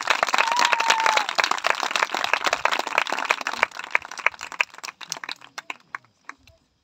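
Audience applauding: dense clapping that thins out and stops about five seconds in, with a short whistle near the start.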